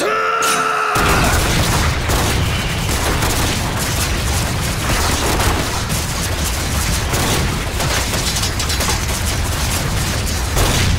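A long, dense barrage of launcher blasts as volleys of wire-trailing steel spikes are fired: rapid overlapping cracks over a heavy, continuous rumble. It starts about a second in and runs on without a break.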